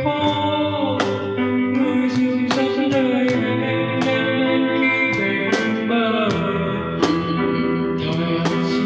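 A band playing a song: guitar over percussion hits on a steady beat, with a voice singing.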